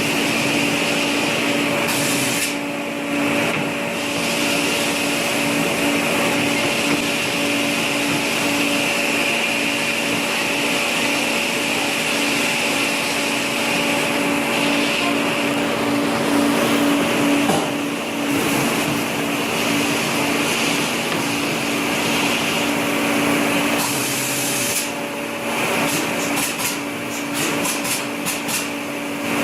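A machine motor running steadily with a constant drone and hiss, broken by a few brief dips in the hiss near the end.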